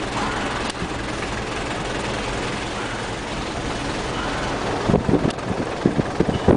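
Motor vehicle engine and road noise heard from aboard the vehicle while it drives. There are uneven low thumps in the last second and a half.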